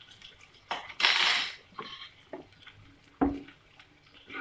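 A spatula scraping and knocking against a non-stick frying pan as a rolled omelette is pushed across it: a half-second scrape about a second in, and a few short knocks, the loudest about three seconds in.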